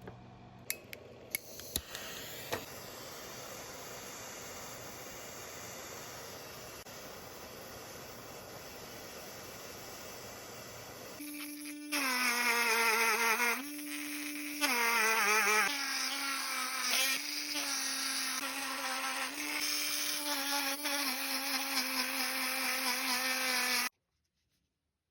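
A steady hiss with a few sharp clicks near the start, then the loud whine of a small electric rotary tool whose pitch dips and recovers as it is pressed against metal for sanding and polishing. It cuts off suddenly near the end.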